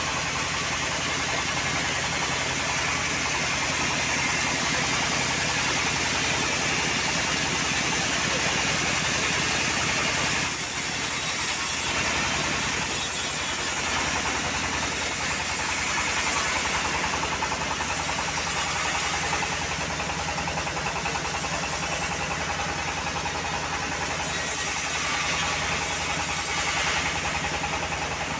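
Engine of a homemade bandsaw mill running steadily, with an even, fast firing rhythm.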